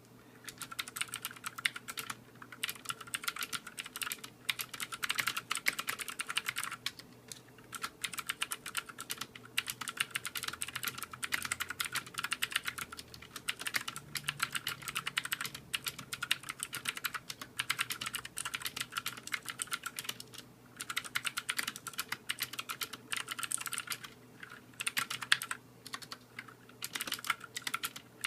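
Fast typing on a budget mechanical keyboard with Gateron switches: rapid runs of key clicks, broken now and then by short pauses.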